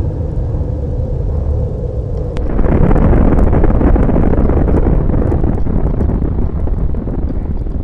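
Deep explosion rumble that swells louder about two and a half seconds in, with crackling on top.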